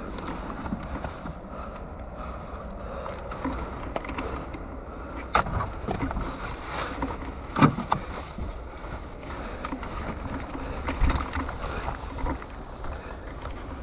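Steady rumbling wind noise on the microphone, with a few sharp knocks; the loudest comes just past the middle.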